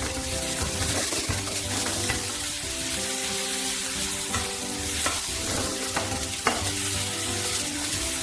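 Sliced onions sizzling in hot oil in a frying pan while a metal spatula stirs them, with a few sharp clicks where the spatula knocks against the pan. Background music plays underneath.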